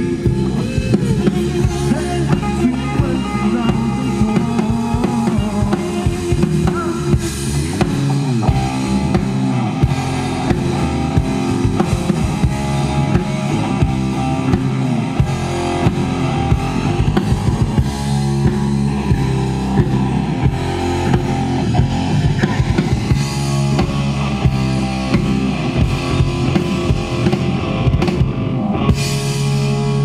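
Live rock band playing a song: drum kit, electric bass and electric guitars, steady and loud, closing on a held chord near the end.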